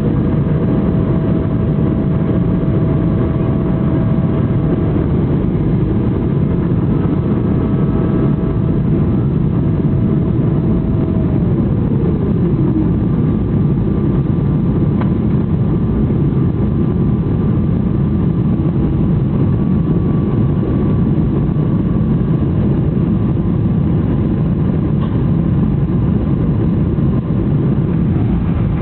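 Boeing 777-300ER's twin GE90 jet engines running at high thrust during the takeoff climb, heard from inside the cabin as a loud, steady roar. A thin whine falls in pitch about eleven seconds in.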